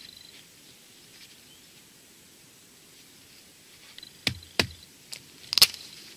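Four sharp clicks and snaps, bunched in the last two seconds and the last one loudest, as a metal tool pries and cuts at the casing of a mobile phone battery.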